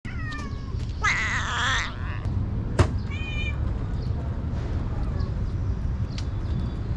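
Kitten meowing: a short falling mew at the start, a louder wavering meow about a second in, and a short mew around three seconds, with a sharp tap just before it. After that only faint ticks while it eats wet food, over a steady low rumble.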